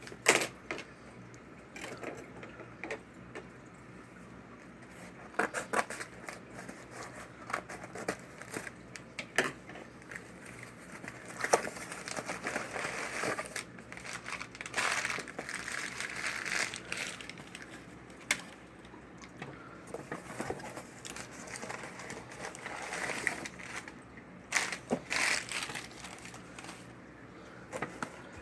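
A package being opened by hand: crinkling and tearing of wrapping and packing material, with scattered small knocks and clicks.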